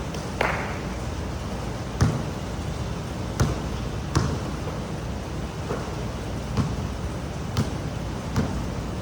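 Steady hiss of heavy rain, with sharp irregular knocks about once a second, like heavy drops striking a hard surface.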